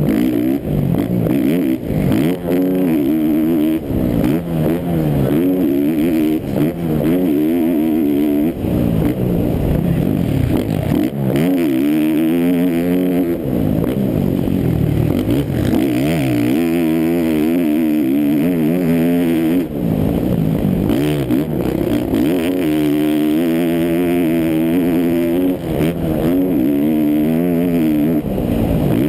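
Onboard sound of a Yamaha YZ450F four-stroke motocross bike ridden hard around a dirt track. The engine revs climb and drop again and again as the rider accelerates and backs off for the turns.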